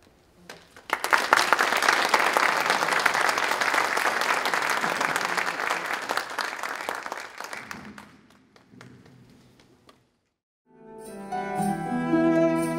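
Audience applauding, starting suddenly about a second in and dying away by about eight seconds. After a brief silence, background music starts near the end.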